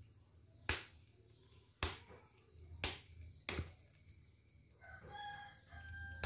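Four sharp knocks as a knife strikes a mud crab's claws to make them let go, the first three about a second apart. Near the end a bird calls in the background with a held, steady note.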